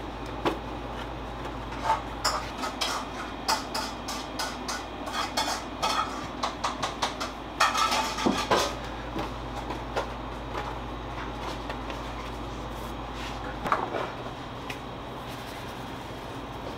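Clatter of metal kitchen tools and trays: a run of quick clinks and knocks, loudest about eight seconds in, over a steady machine hum that drops away near the end.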